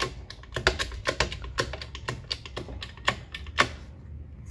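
Shop press forcing a rubber-metal bushing out of a Honda Accord control arm: about a dozen sharp, irregular metallic clicks and ticks as the part is loaded and moves, the loudest a little after three and a half seconds in, then they stop.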